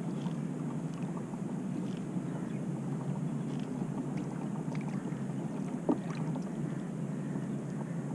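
Steady low rush of water and air around a Hobie PA12 kayak on the sea, with a single sharp knock about six seconds in.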